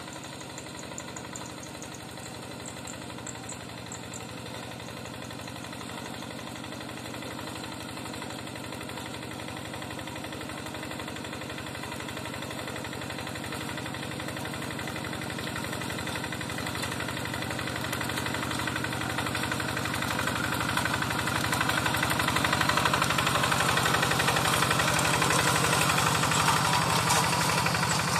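Yanmar Bromo Pro hand tractor's single-cylinder diesel engine running steadily as it pulls its cage wheels through wet paddy mud, growing louder as it comes close over the last third.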